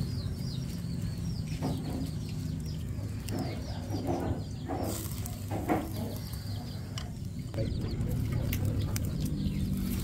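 Birds chirping in quick, short falling notes through the first half, with a few lower, short calls between them, over a low steady hum.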